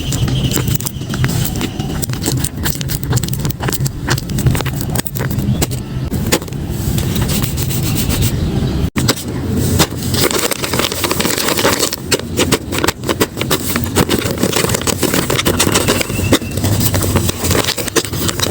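Paper crinkling and rustling as handmade paper blind bags and their paper-craft items are opened and handled, a dense run of small crackles and scrapes over a steady low hum. The sound cuts out for a moment about nine seconds in.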